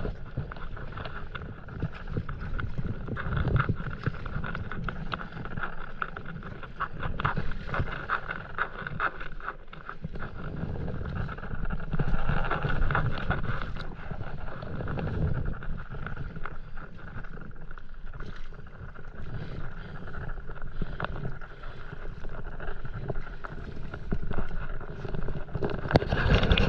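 Stand-up paddleboard paddle strokes dipping and pulling through calm sea water, the level swelling and easing from stroke to stroke, with wind rumbling on the microphone.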